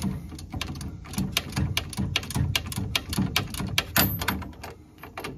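Hand ratchet clicking in a quick, even run, about five clicks a second, with one louder metal knock about four seconds in.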